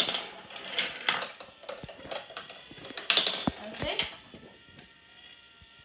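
Marbles clattering through a plastic marble run: a string of sharp clicks and knocks of glass on plastic track and funnels, with ratcheting from the chain lift. It goes quieter after about four seconds, leaving a faint steady hum.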